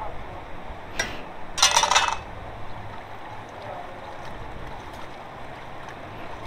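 Water sloshing and splashing in a plastic basin as fish pieces are washed by hand, with a sharp click about a second in and a short, loud splash just after.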